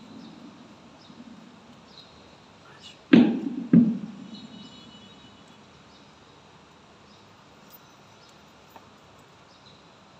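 Two loud thumps about half a second apart, a few seconds in, each trailing off in a long echo; the rest is a low hum of the hall.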